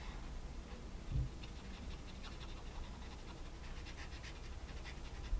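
Black marker scratching across paper in quick, rhythmic strokes as letters are drawn and filled in. There is a dull thump on the table about a second in and another near the end.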